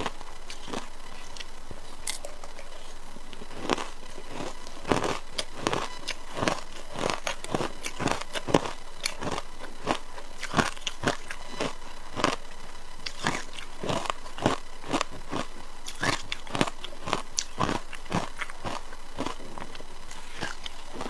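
Someone biting and chewing frozen matcha ice: a long run of sharp, irregular crunches, roughly one or two a second.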